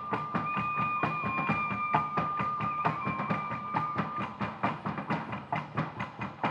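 Fast percussion music for a dance: an even run of sharp strikes, several a second, under a held high melodic note that dips briefly twice and stops a little over halfway through.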